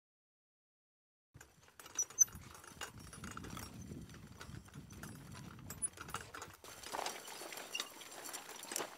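Silence for about a second and a half, then a hand-pushed Terrateck wheel hoe with its bio-disc weeding attachment working along a crop row. The discs scrape through the soil, with irregular light knocks and clanks from the frame and wheels, and footsteps.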